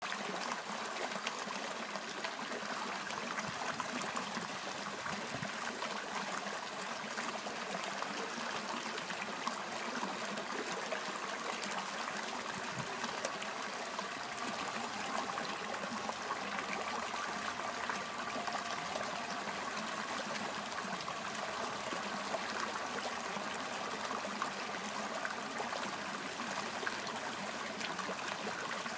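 Running water flowing steadily, an even, unbroken rush with no pauses or changes.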